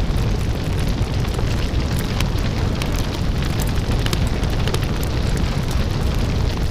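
Vinyl record surface noise from a stylus in the groove: a steady hiss with a strong low rumble and a dense scatter of crackles and pops.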